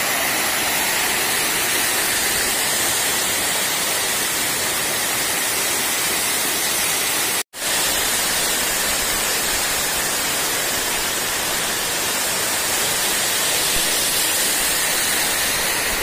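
Waterfall pouring over rock ledges into shallow pools: a steady rush of falling water that cuts out for an instant about halfway through.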